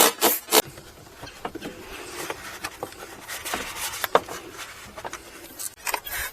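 A rag scrubbing inside the heater blower housing: a few quick rubbing strokes at the start, then quieter rustling with scattered light clicks.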